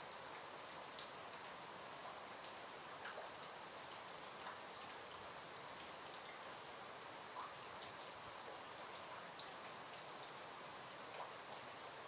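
Steady rain falling, an even hiss with a few slightly louder single drops ticking close by now and then.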